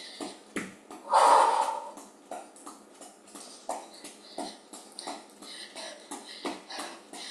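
Running shoes landing on an exercise mat in a quick, even rhythm of about three steps a second during low-kick cardio. About a second in there is one louder, hissing burst that lasts under a second.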